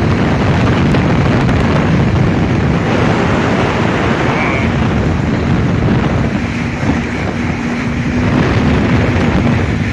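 Loud wind buffeting the microphone over a boat engine's steady drone.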